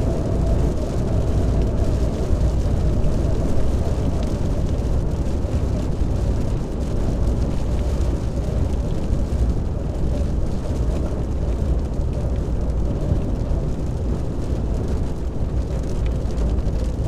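Strong wind buffeting the microphone: a steady, loud, low rumbling roar with no distinct events.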